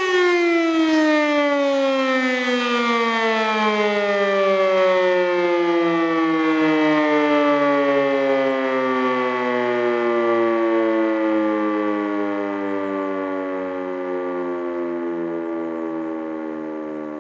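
E57 motor-driven rotor-stator siren winding down after being switched off: its many-harmonic tone slides slowly and steadily down in pitch to about half and fades gently toward the end as the rotor coasts. The rotor is spinning the wrong way because of a reversed phase sequence (falsches Drehfeld), yet the siren still sounds fairly loud.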